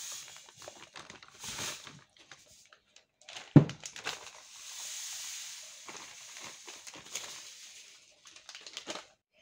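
Granulated sugar poured from a plastic bag into a plastic measuring jug, a steady hiss heard twice, with the bag crinkling and rustling. A single loud thump comes about three and a half seconds in.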